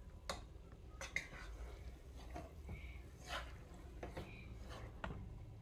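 Wooden spoon stirring vegetables in a metal cooking pot, giving irregular soft knocks and scrapes against the pot, about seven in all, over a low steady hum.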